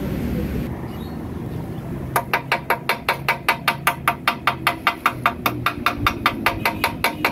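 Rapid, even hammer strikes on steel, about five a second, each ringing, starting about two seconds in and lasting roughly five seconds, during work on the reinforcing plate for a cracked motorcycle frame.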